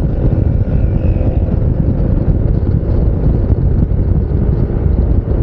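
Wind buffeting a helmet-mounted lavalier mic that has no wind muff, a loud, steady, rumbling rush, over a Yamaha NMAX 155 scooter's engine running at road speed.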